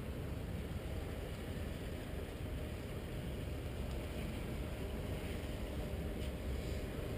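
Steady low rumble of a cabin cruiser's engine idling, the boat holding still in a lock chamber.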